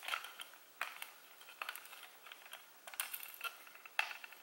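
Irregular light clicks and taps of a small Allen key turning an M4 bolt, tightening it into a nut held in a 3D-printed plastic part, with the plastic and acrylic parts knocking lightly in the hands.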